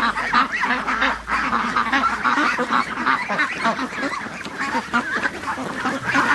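A large flock of domestic ducks quacking all at once, many calls overlapping without a break, with goose honks mixed in.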